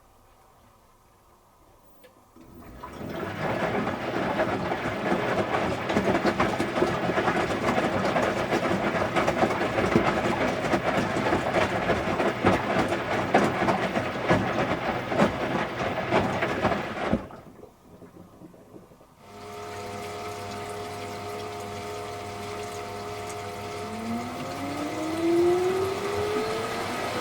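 Electrolux Wascator W355H commercial washing machine running: water rushing through it for about fifteen seconds, then stopping. After a short pause its motor hums, and near the end a whine rises steadily in pitch as the drum speeds up.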